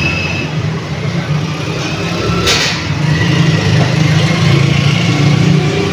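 Steady low engine rumble, like a motor idling, with a short hiss about two and a half seconds in.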